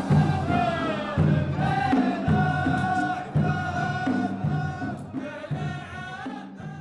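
Music: a sung chorus of several voices chanting a melody together in held, sliding notes, fading lower toward the end.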